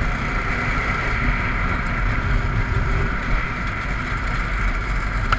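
Small go-kart engine running steadily while the kart drives along, with the rumble of its tyres rolling over gravel.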